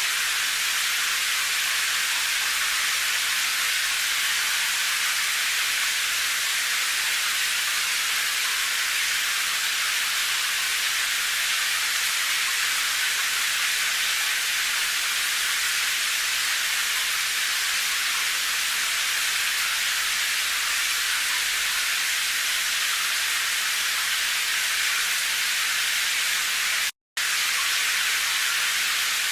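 Steady rain, an even hiss with little low rumble. It cuts out completely for a split second near the end.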